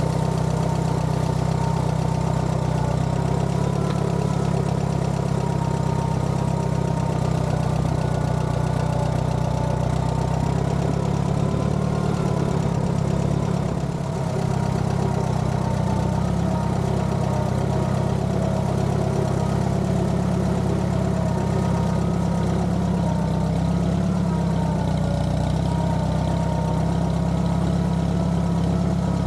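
Allis-Chalmers B tractor's four-cylinder engine running steadily, with a slight wavering in pitch.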